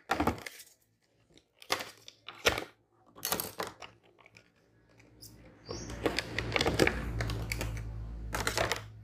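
Hands fitting a phone into the plastic device slot of a Cricut Maker cutting machine: several sharp plastic clicks and knocks in the first few seconds, then about three seconds of rubbing and scraping over a low rumble.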